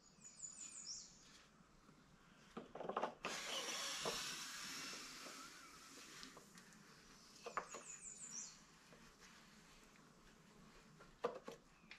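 Faint handling noise of a new water pump housing being worked down the driveshaft onto a Yamaha 115 outboard's lower unit: a few light clicks and knocks, and a few seconds of rubbing and scraping as the housing and its O-ring are pushed into place. A short high chirp sounds near the start and again about eight seconds in.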